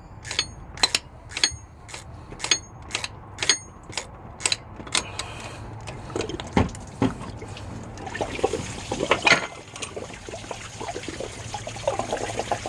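Engine coolant (antifreeze) trickling and splashing out of a Toyota Corolla's 1.8 engine where the water pump has been unbolted. It follows about five seconds of regular sharp clicks, roughly two a second.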